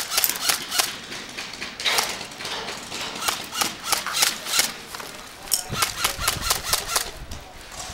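Quick footsteps of a person running on dirt and gravel, about three steps a second, in two runs with a short pause between.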